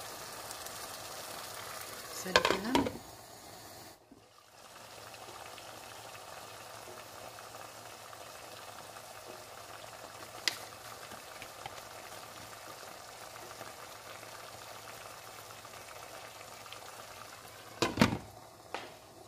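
Eggs and tomato slices sizzling steadily in a frying pan. A brief clatter of knocks comes about two seconds in, and near the end a glass lid knocks and clinks several times as it is set down on the pan.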